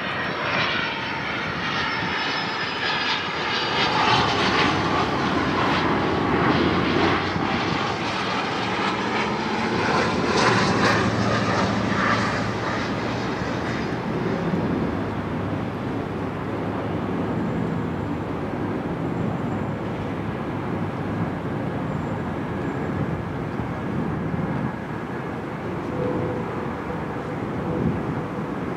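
Boeing 777-300ER's GE90 turbofan engines whining and rumbling as the jet flies past low on landing approach. The whine falls in pitch over the first dozen seconds, and after about 14 seconds the sound eases to a softer, steady rumble, with a faint steady hum coming in near the end.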